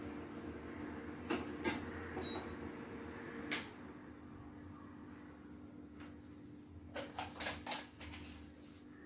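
Kitchen clatter of metal utensils: a few sharp clinks and knocks, then a quick cluster of clanks about seven seconds in as a steel saucepan is gripped and lifted with a pot gripper, over a steady low hum.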